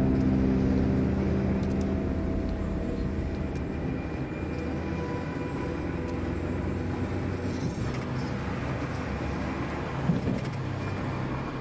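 A car driving along a road: steady engine and tyre rumble heard from inside the car.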